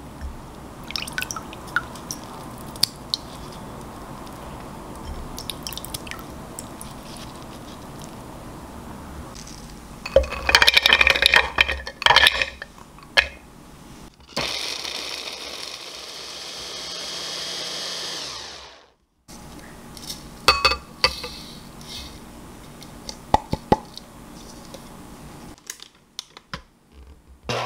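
Water swishing, with small clicks of almonds, as blanched almonds are rubbed out of their skins in a glass bowl. About ten seconds in comes a few seconds of loud clattering of almonds, then a small food processor runs steadily for about four and a half seconds, grinding the blanched almonds into almond flour, and winds down. Scattered clicks and knocks of handling follow.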